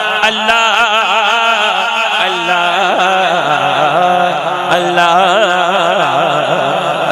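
Male voice reciting a naat, holding long ornamented notes with a wavering pitch, over a steady low drone.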